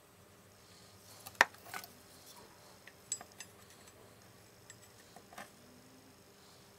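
A few sharp clicks and light clinks of small hard objects being handled and set down, the loudest about one and a half seconds in.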